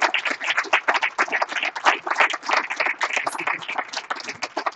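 Audience applauding: many people clapping at once in a dense, continuous stream.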